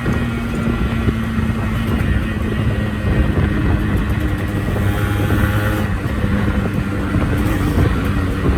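Yamaha RX-series two-stroke single-cylinder motorcycle engine running, its pitch shifting slightly up and down.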